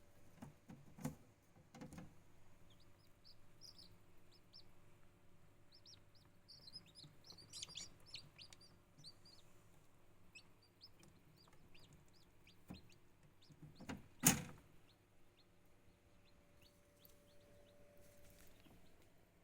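Chicks peeping faintly in many short, high chirps, with a few knocks and one loud knock about 14 seconds in.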